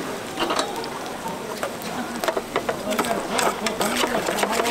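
A utensil stirring and tossing sauced noodles in an aluminium pot, giving a quick, uneven run of clicks and scrapes against the pot's metal that gets busier about a second and a half in.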